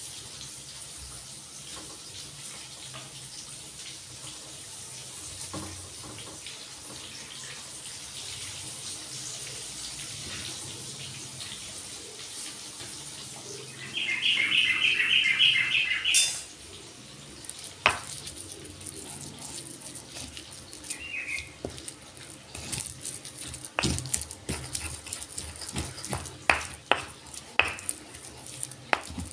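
Stone pestle (ulekan) knocking and grinding in a stone mortar (cobek), irregular sharp knocks in the second half as chili sambal is ground to a paste. About halfway through, a loud burst of rapid high chirping lasts about two seconds; before that, only a steady low hiss.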